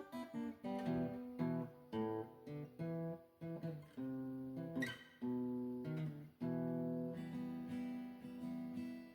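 Acoustic guitar strummed and picked in chords, an instrumental break in a song.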